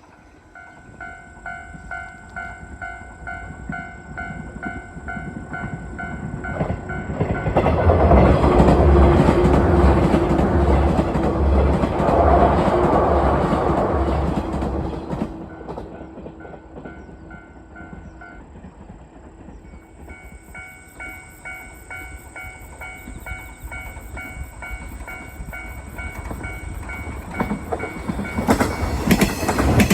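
Japanese level-crossing warning bell ringing in a steady repeating pattern. About eight seconds in, an electric train runs over the crossing for around seven seconds, its wheels clacking over the rail joints. The bell rings on, stops briefly, starts again, and near the end a second train approaches loudly.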